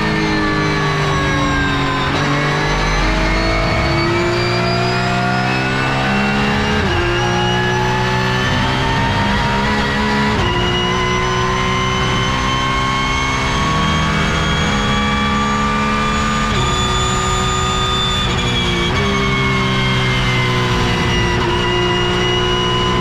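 Porsche 911 GT3 Cup (992) race car's flat-six engine heard from inside the cockpit at racing speed. The note falls as the car slows for a corner, then climbs hard with quick sequential upshifts about seven and ten seconds in, holding high revs in fifth gear.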